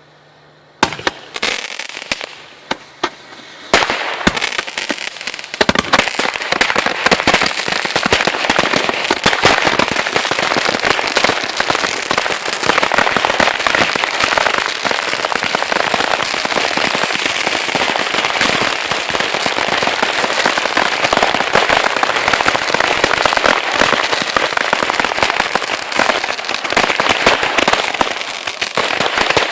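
A bundle of roman candles wired together as a 'mini gun' firing: a few separate shots starting about a second in, then from about four seconds a dense, continuous rattle of shots over a steady hiss.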